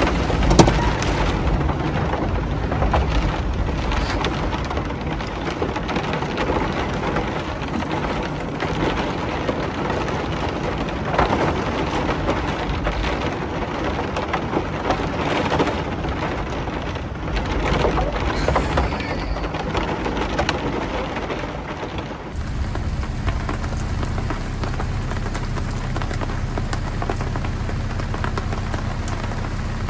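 Heavy rain pattering and crackling with a low rumble. About two-thirds of the way through, the sound abruptly changes to a steadier rush with a low hum under it.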